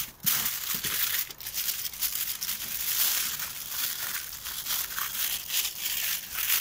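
Aluminium foil crinkling and crackling as hands wrap and press it tightly around a loaded kebab skewer: a continuous rustle of many small, irregular crackles.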